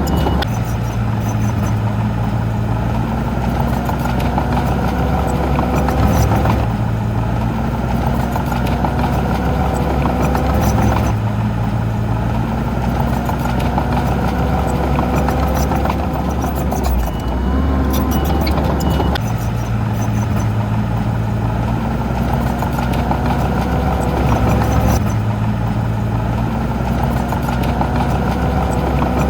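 Heavy diesel engine of earthmoving machinery running steadily and loud, its tone changing abruptly every several seconds.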